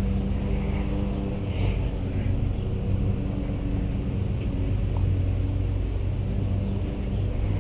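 A motor running steadily: a low, even hum.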